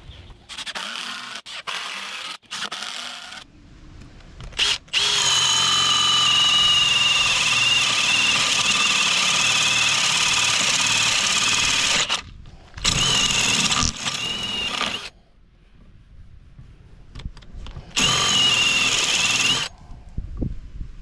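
Cordless drill with a spade bit boring into stacked pressure-treated lumber. The motor whine wavers as the bit loads in the wood. A few short bursts are followed by one long run of about seven seconds, then three shorter runs.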